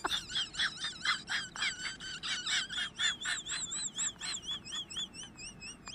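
A rapid series of high, whistle-like chirps, about four to five a second, each wavering up and down in pitch.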